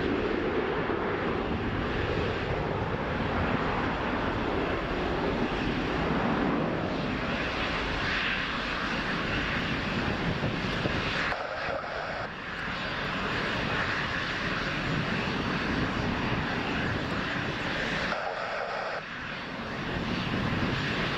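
Boeing 737 jet airliner's engines at takeoff thrust during the takeoff roll and lift-off, a loud continuous rushing jet noise. The level dips briefly twice, around halfway and near the end.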